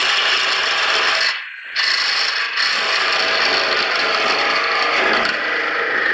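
Carbide-tipped parting tool cutting into pine spinning on a wood lathe: a steady scraping cut that breaks off briefly about a second and a half in, then carries on.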